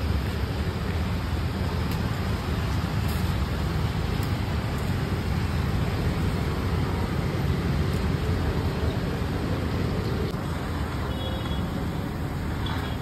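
Steady low rumbling background noise, with a few faint short high tones near the end.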